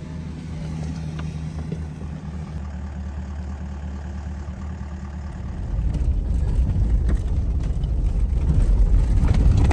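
Off-road SUV with its engine running, a steady low hum; about six seconds in it gives way to a louder, rougher low rumble.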